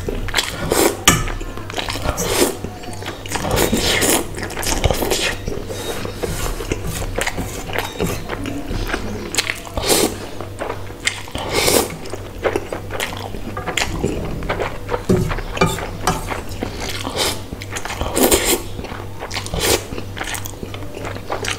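Close-miked eating of spicy instant noodles: loud wet slurps as strands are sucked in, a sharp one every second or two, with chewing and mouth sounds between.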